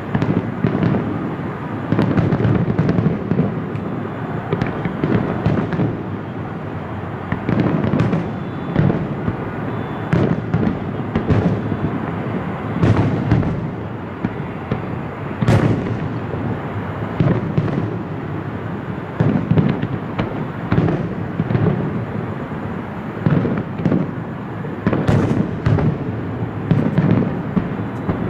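Aerial fireworks shells bursting in a rapid, continuous barrage: overlapping booms and crackles with a steady rumble beneath. A few sharper cracks stand out, one about halfway through and another near the end.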